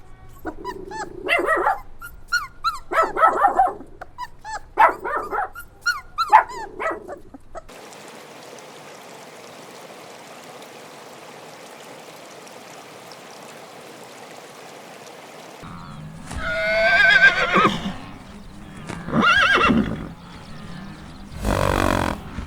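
A run of short animal calls, then a steady background hiss for several seconds, then a horse whinnying three times, loud and quavering.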